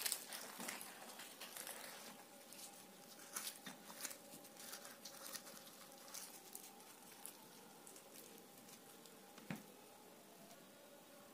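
Faint crackling of a puffed, deep-fried luchi being torn by hand and dipped into potato curry, with small clicks and soft wet squishes. One sharper click comes late on, and a faint steady hum lies underneath.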